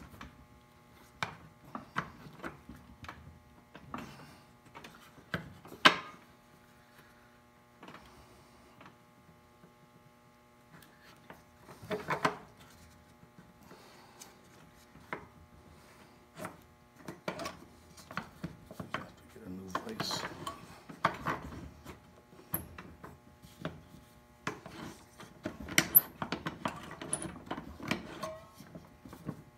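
A wooden half-hull model being handled in a bench vise: scattered knocks and clicks of wood against the vise and bench, with stretches of rubbing, including a sanding block brushed along the hull near the end. A faint steady hum runs underneath.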